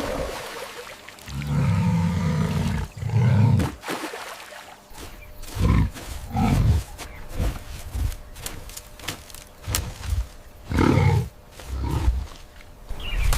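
A large animal growling and roaring in a series of low bursts, one longer call followed by shorter ones at uneven intervals.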